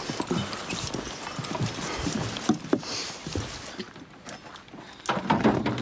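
Footsteps of hikers walking with heavy packs, with skis and gear on the packs knocking and rattling: a run of irregular knocks and clicks.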